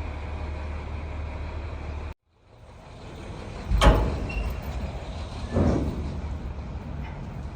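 Steady low rumble of an idling truck engine that cuts off abruptly about two seconds in. After the sound fades back in, a sharp, loud bang comes near four seconds and a duller knock about a second and a half later.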